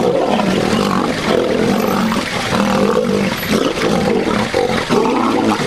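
Two male lions fighting, roaring loudly and almost without a break.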